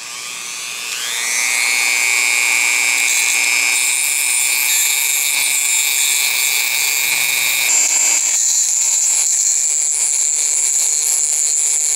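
Dremel rotary tool spinning up to a steady high-pitched whine as it grinds the barb off a steel fishing hook. Its tone shifts about eight seconds in.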